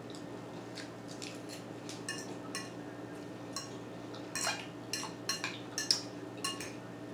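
Metal fork clinking and scraping in a bowl of tossed salad as she picks up forkfuls: a series of sharp, ringing clinks, few at first and coming thick and fast in the second half, the loudest a little before the end.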